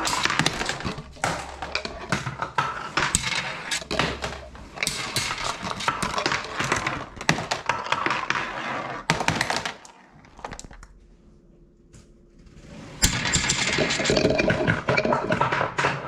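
Marbles clattering down a toy marble run: a dense, irregular stream of small clicks and knocks that dies away to a lull about ten seconds in and then starts up again.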